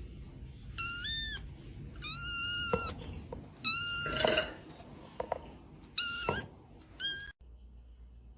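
Cat meowing over and over: about five high-pitched meows, the longest a little under a second.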